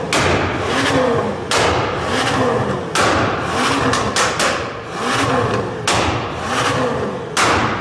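McLaren GT's twin-turbo V8, fitted with catless downpipes, a valvetronic catback exhaust and a Stage 2 ECU tune, blipped from idle about once a second. Each rev falls away into a burst of sharp pops and crackles from the exhaust.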